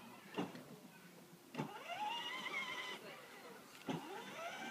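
Electric drive motor of a child's ride-on toy Audi whining as the car drives off, twice. Each run starts with a click and rises in pitch; the first dies away after about a second and a half.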